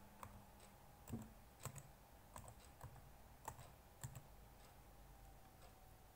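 Faint, slow keystrokes on a computer keyboard: single key presses about every half second, growing fainter in the last couple of seconds, as a password is typed in.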